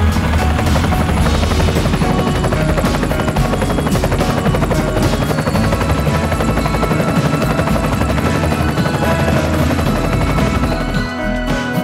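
Background music with a fast, busy beat, thinning out briefly near the end.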